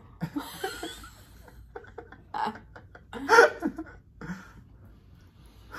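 People stifling laughter: short snickers and breathy giggles, with a louder burst of laughing about three seconds in.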